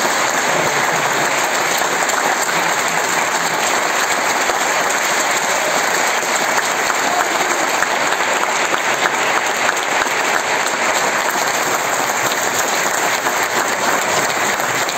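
Audience in a cinema hall applauding steadily, a dense, even clapping that holds without let-up.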